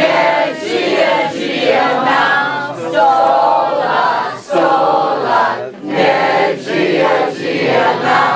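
A group of men and women singing together in chorus, in short phrases with brief breaks.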